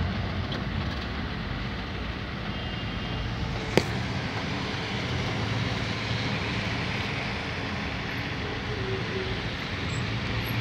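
Steady road and engine noise of a car moving on a wet road in the rain, with a low hum underneath. A single sharp click about four seconds in.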